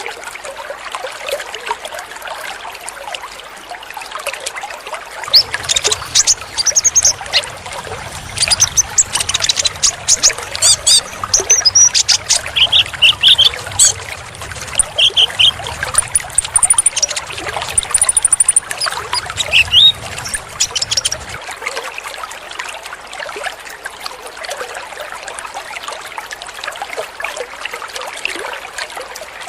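Water trickling steadily, with a konin (kolibri ninja) bird singing rapid, high chirps and short twittering trills from about five seconds in until about twenty seconds in.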